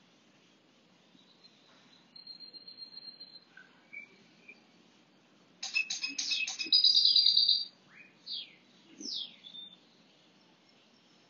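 Songbirds chirping and singing: a high, quick trill about two seconds in, then a burst of rapid chattering notes and a loud fast trill about six to seven seconds in, followed by a few short downward-sliding notes.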